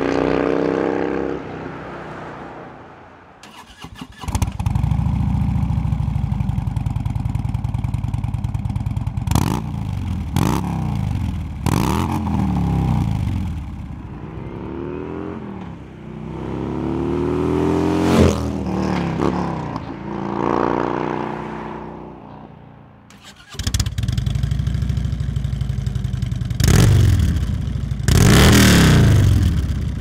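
Harley-Davidson big-twin V-twin engine fitted with aftermarket slip-on mufflers: Bassani 3" Firepower for most of the clip, then Rinehart Touring 4" after a cut near the end. It idles with short sharp throttle blips, rides past with its pitch rising then falling, and after the cut revs hard twice. At the start a bike on the stock exhaust fades into the distance.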